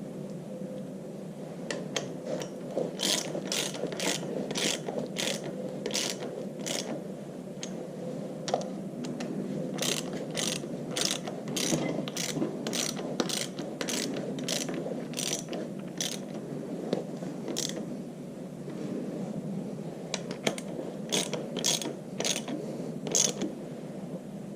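Socket ratchet wrench with a 9/16 inch socket clicking in three runs of strokes, about two clicks a second, as 3/8 inch bolts are tightened to draw a tractor's rear wheel bearing retainer evenly onto the axle. A steady low hum sits underneath.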